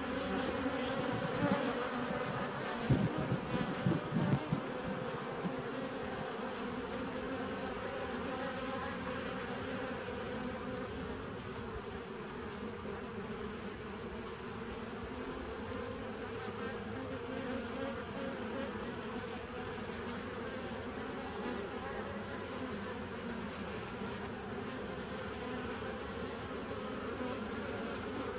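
Honey bees buzzing at the entrance of a nuc hive: a steady hum of many bees flying in and out, with a few louder, lower buzzes about three to four seconds in.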